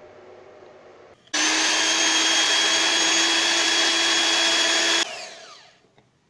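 Bajaj Majesty electric hand mixer beating eggs and sugar: a steady motor whine starts suddenly a little over a second in and runs for almost four seconds. It is then switched off and fades as the motor spins down.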